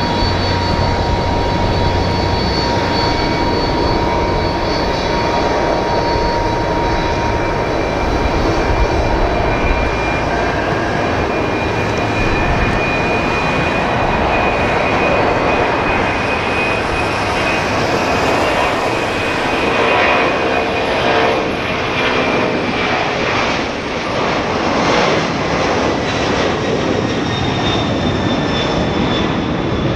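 Boeing 767 freighter's twin jet engines at takeoff thrust during the takeoff roll and rotation: a steady roar with high whining tones that fall slowly in pitch about halfway through.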